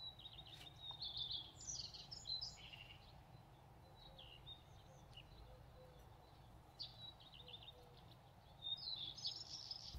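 Faint bird chirps in the background: quick series of short high chirps in the first few seconds and again near the end, with near silence between.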